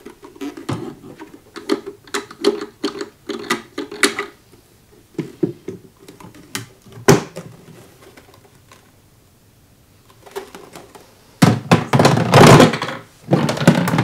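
Hard plastic clicks and knocks as the clear water tank of an Ecovacs Deebot X1 Omni station is handled and its hinged lid opened and shut, a rapid run of them in the first four seconds and a few single knocks after. Near the end comes a louder stretch of scraping plastic as the tank is set back down into the station.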